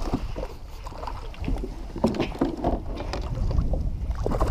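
Wind rumbling on the microphone, with irregular knocks and rustles from the angler moving and handling gear in a plastic kayak while landing a fish.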